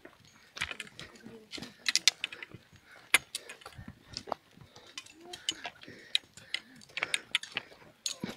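Walking poles clicking and tapping on rocky trail ground, sharp irregular clicks about one to three a second.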